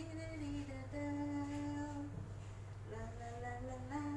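A woman humming a slow tune in long held notes, over a steady low background hum.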